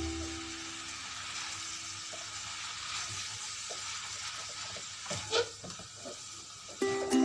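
Rice-stick noodles, cabbage and ham sizzling in a hot wok while a plastic spatula stirs and tosses them, with a few scrapes about five seconds in. Background ukulele music fades out at the start and comes back near the end.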